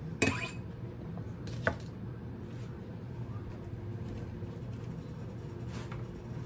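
A kitchen knife set down on a plastic cutting board with a sharp clack, then a lighter knock over a second later, over a steady low hum.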